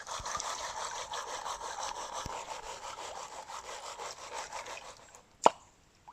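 Gravel and sand scraping and grinding around in a gold pan as it is worked in creek water, fading out near the end. A single sharp click comes about five and a half seconds in.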